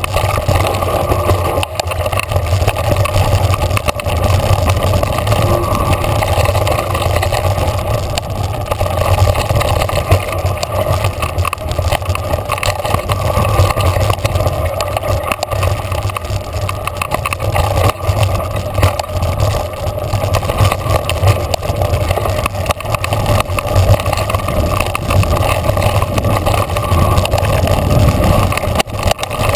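Wind rushing over the camera microphone and mountain bike tyres rolling over a dirt trail at speed: a loud, steady rumble with small knocks and rattles from the bike over the bumps.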